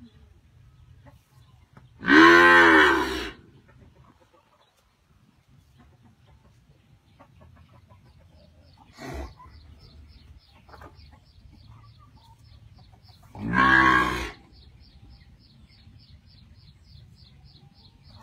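Young cattle mooing: two long, loud moos about eleven seconds apart, with a short, weaker call between them. A faint, high, regular ticking runs through the second half, about four ticks a second.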